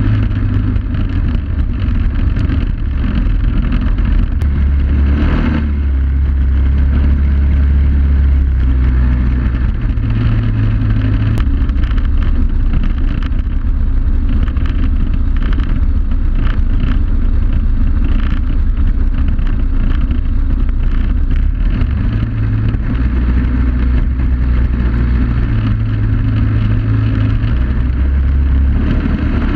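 Suzuki DR800S motorcycle's big single-cylinder engine running under load while riding a dirt track, its note rising and falling a few times with the throttle.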